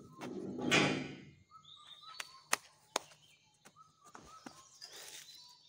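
A long galvanized steel pipe scraping as it is slid onto a pickup's load bed, loudest about a second in, followed by a few sharp knocks. Small birds chirp briefly now and then.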